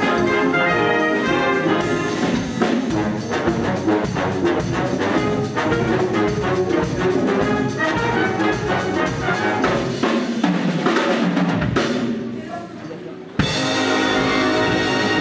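Concert wind band playing a Cuban-style piece: brass, saxophones and clarinets over drum kit and percussion. About twelve seconds in the music drops quieter, then the full band comes back in suddenly a second and a half later.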